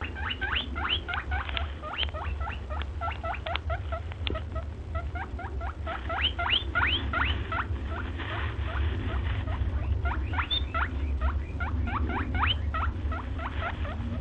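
Many small animals giving short rising squeaky chirps, several a second and overlapping, over a steady low rumble.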